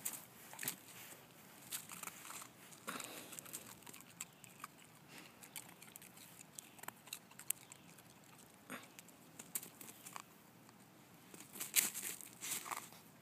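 Elkhound biting and chewing mouthfuls of snow, irregular crisp crunches, with the loudest run of crunches near the end, mixed with the patter of her paws in the snow.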